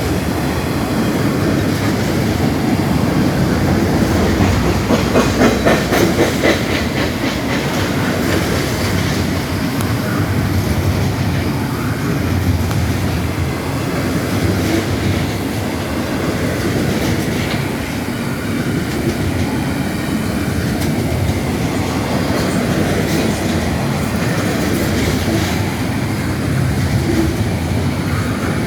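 CSX intermodal freight train rolling past with a steady rumble of wheels on rail. There is a run of rapid wheel clicks about five seconds in.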